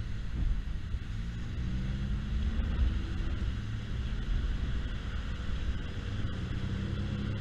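Yamaha Zuma 50cc scooter engine running under a steady low wind rumble on the microphone, its note rising and falling a couple of times.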